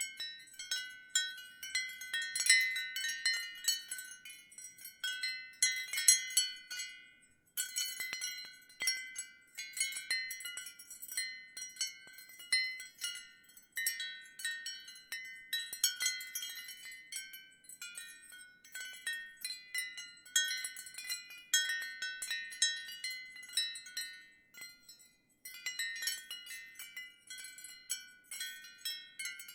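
Ceramic wind chime tinkling in the wind: many overlapping high ringing strikes in irregular clusters, with short lulls about seven, fourteen and twenty-five seconds in.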